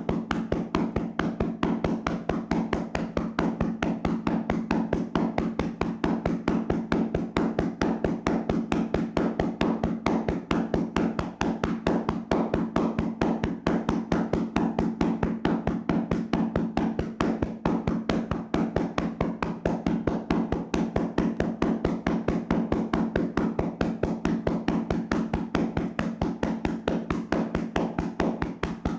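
Rapid, rhythmic slapping and tapping of hands on a person's body during a vigorous percussive massage, several strikes a second at an even pace, over a steady low hum.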